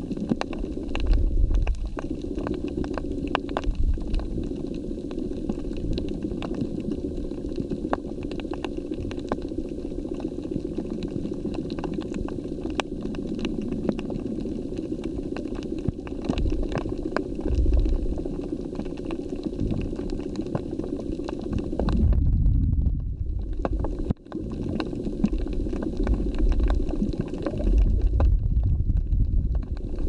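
Underwater sound on a shallow reef, as picked up by a submerged camera: a steady muffled hum with constant fine crackling, and low rumbling surges of water movement that swell up every few seconds.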